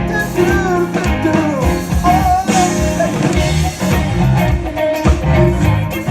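Live rock band playing: guitar over a bass line, with a voice singing.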